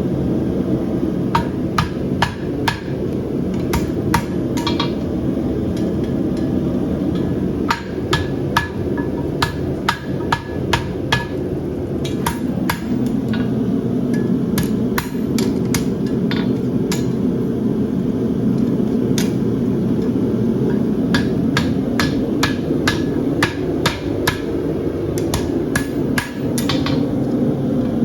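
Hand hammer striking a steel horseshoe on an anvil as a farrier trues its shape, blows coming in irregular runs with short pauses, some leaving a brief ring. A steady low rumble runs underneath.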